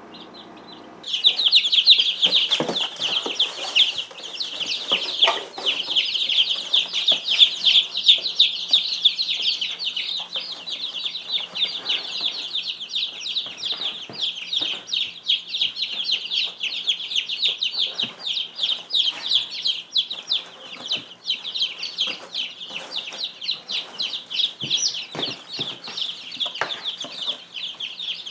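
A group of young chicks peeping: dense, rapid, high-pitched cheeping that starts about a second in and keeps going, with scattered light clicks among it.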